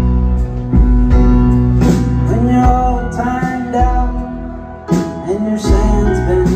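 Live rock band playing a song, with keyboard and pedal steel guitar over bass and drums; a sung vocal line comes in about two seconds in.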